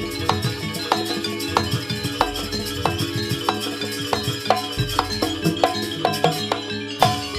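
Jaranan gamelan accompaniment: sharp drum and metal strikes a few times a second over sustained ringing gong tones, in a steady lively rhythm.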